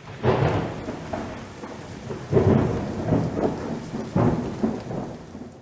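Thunderstorm: rumbling thunder over steady rain, swelling three times about two seconds apart and fading in at the start.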